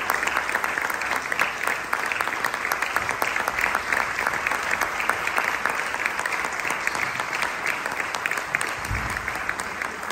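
Audience applauding: a dense, steady clapping from many hands that eases off slightly near the end.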